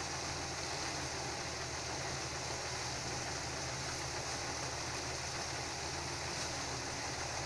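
Rice threshing machine running steadily under load while sheaves of rice are fed into it: a constant engine drone with a broad hiss over it.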